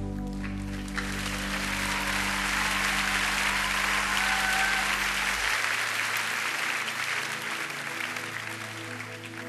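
A crowd applauding, swelling about a second in and dying away near the end, over held music chords whose bass notes drop out about halfway through.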